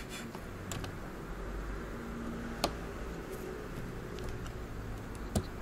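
Light clicks and ticks of a Ryzen 7 5800X CPU being set into an AM4 motherboard socket and the metal retention lever being worked, with one sharper click about two and a half seconds in.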